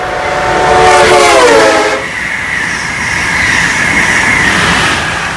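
Amtrak locomotive's five-chime air horn sounding as the train passes; the chord drops in pitch and cuts off about two seconds in. The train then rolls by with a steady high-pitched ring over the running noise.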